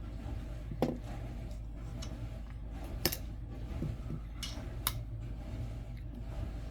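A few light clicks and taps from coins being handled, over a steady low hum.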